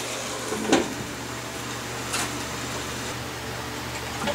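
Cast-iron lid set down on a cast-iron skillet with one sharp clank a little under a second in, then a steady, muffled hiss of food frying under the lid.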